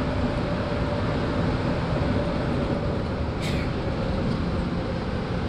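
MR-63 rubber-tyred Montreal Metro train heard from inside the car, running with a steady rumble and a whine that slowly drops in pitch as it slows into a station. A short hiss comes about three and a half seconds in.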